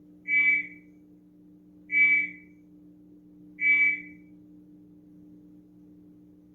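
Three short, high-pitched chirps about a second and a half apart, played back as recorded sound effects over a faint steady hum.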